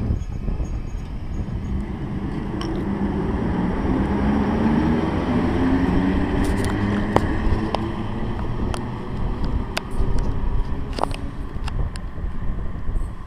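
PKP EP07 electric locomotive moving off past the platform: a steady rumble with a hum from its motors that rises in pitch as it gathers speed, and irregular sharp clicks from the wheels and track.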